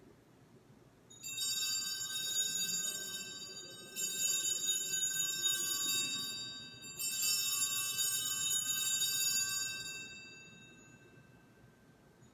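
Altar bells (Sanctus bells) rung three times, about 1, 4 and 7 seconds in, each a bright jingling ring that fades out after the third. The ringing marks the elevation of the consecrated host at Mass.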